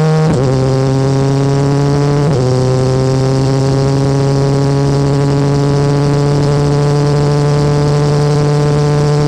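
BMW S1000R inline-four engine running through its factory Akrapovič exhaust while riding. The exhaust note drops sharply twice in the first few seconds, as with upshifts, then rises slowly and steadily as the bike pulls in gear.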